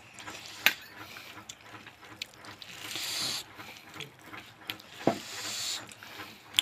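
Close-up eating noises: wet chewing and lip-smacking of a mouthful of rice, with a few sharp clicks and two short hissy stretches.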